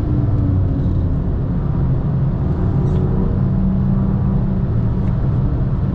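BMW M2 (F87) engine and exhaust running steadily under way, its pitch holding fairly even, heard from onboard the moving car along with tyre and road noise.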